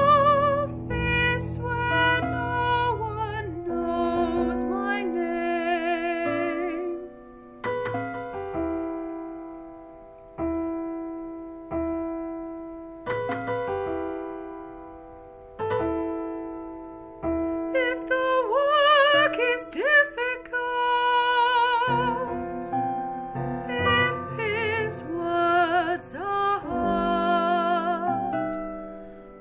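Music: a woman singing a slow, bluesy operatic lament with a wide vibrato over piano chords. For about ten seconds in the middle the voice stops and the piano plays alone, each chord struck and left to die away, before the singing comes back.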